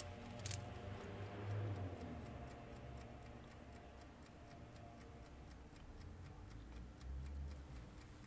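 Faint, even ticking, several ticks a second, over a low steady hum.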